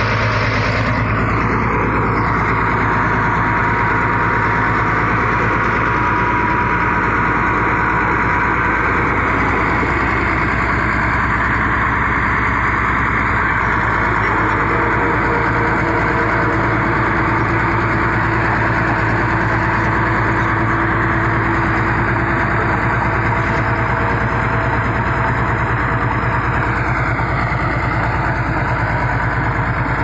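Crawler bulldozer's diesel engine running steadily while the dozer pushes soil with its blade.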